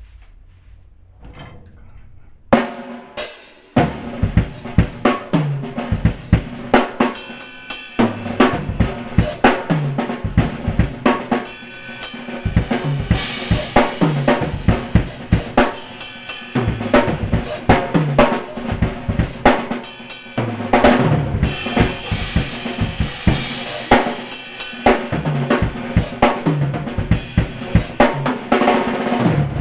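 Drum kit solo with TRX cymbals, starting about two and a half seconds in: fast, dense strokes on kick drum and snare under ringing cymbals.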